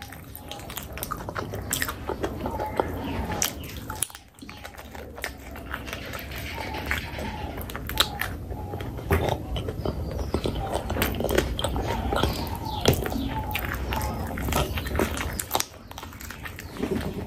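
Close-miked chewing and biting of a mouthful of Indian curry, with many short wet mouth clicks throughout.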